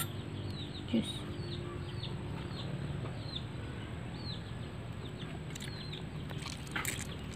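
Birds peeping over and over: short, high calls that slide down in pitch, several a second, over a steady low hum, with a single light click about a second in.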